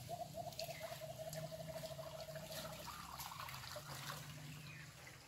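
Shallow stream water trickling and dripping as hands work in it. Over it, an animal call: a run of short repeated notes that speeds up and stops about three seconds in.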